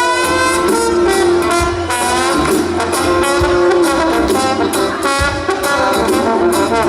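Live band playing, with a trombone solo sliding between notes over bass and drums.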